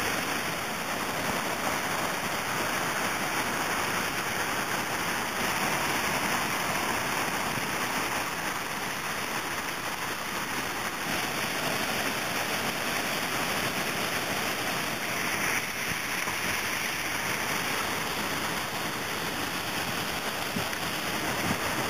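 Waterfall pouring over a river ledge into churning whitewater: a steady, unbroken rush of falling water.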